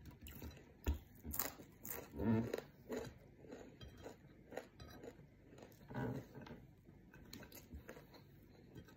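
Close-up chewing and crunching of fried anchovies and fried rice, with many small crackles and clicks as the food is picked from the plate by hand. Two short low hums, about two seconds in and again about six seconds in.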